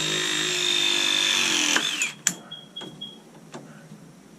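Battery-powered press tool pressing a plumbing fitting onto pipe. Its motor whines steadily, drops in pitch and stops about two seconds in as the press cycle completes, followed by a sharp click and a couple of lighter knocks.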